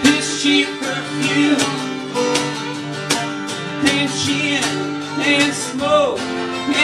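A live country band playing: strummed acoustic guitar, upright bass, fiddle and a hand drum keeping a steady beat, with a man singing lead.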